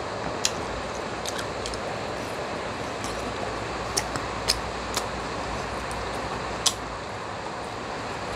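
Steady hiss of heavy rain, with a few sharp close-up clicks of eating and chewing at the microphone.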